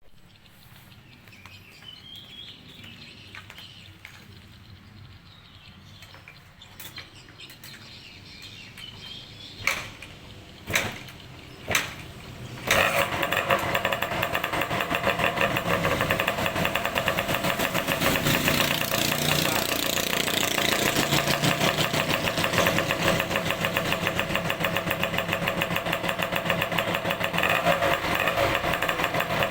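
Kawasaki Binter KE125's 125 cc single-cylinder two-stroke engine being started: three sharp starting attempts, then it catches about thirteen seconds in and runs with a fast, even two-stroke beat.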